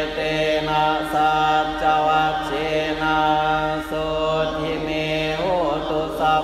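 Thai Buddhist monks and laypeople chanting Pali verses together on one steady pitch. The syllables are drawn out, with short breaks between phrases.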